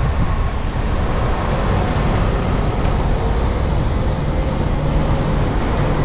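Steady city traffic and road noise heard from a moving bicycle: an even rush with a deep rumble underneath, no single event standing out.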